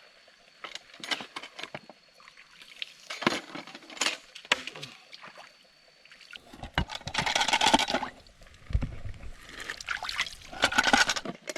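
Cookware clinking and knocking, with water splashing or being poured in two longer bursts.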